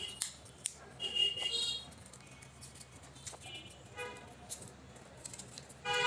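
Several short horn toots with a steady pitch. The longest and loudest starts near the end, with a few light taps in between.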